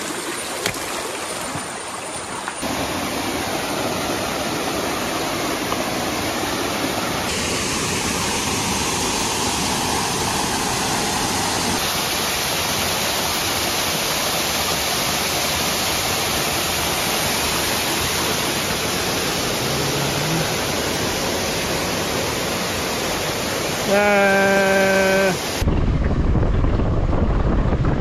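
Steady rush of a waterfall's water, carrying on across several cuts. Near the end there is a held pitched tone for about a second and a half. It is followed by a louder low, steady rumble.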